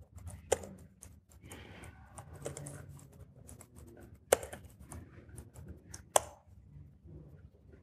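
Typing on a laptop keyboard: a run of quick key clicks, with three louder, sharper clicks near the start, about four seconds in and about six seconds in.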